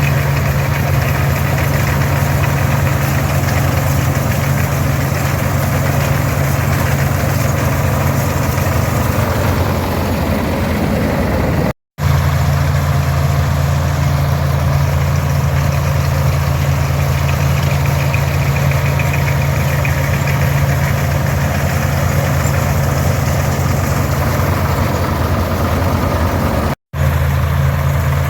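Farmall 460 diesel tractor's six-cylinder engine running steadily with the pull-type combine, a constant low drone. The sound drops out abruptly for a moment twice, about twelve seconds in and near the end.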